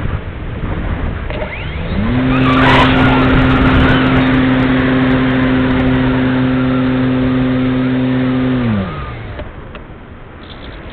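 Parkzone Radian Pro's brushless electric motor and folding propeller spinning up about two seconds in, running at a steady pitch through a steep climb, then winding down and cutting off near the end as the glider throttles back. Wind noise on the wing-mounted camera runs under it and is left on its own after the cut.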